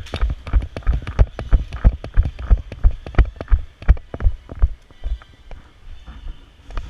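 Heavy footfalls of a player running, about three thuds a second, with gear and the body-worn camera jolting at each step; they stop about five seconds in.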